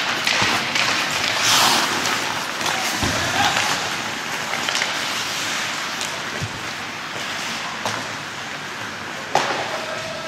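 Ice hockey in play: skates scraping across the ice and sticks clicking on the puck, with a sharp knock near the end.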